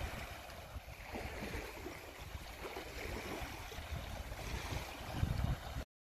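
Small waves lapping on a sandy beach, with wind rumbling on the microphone and a stronger gust about five seconds in.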